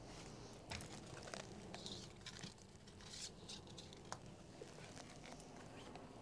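Tarot cards being handled: faint rustling with scattered light clicks and taps.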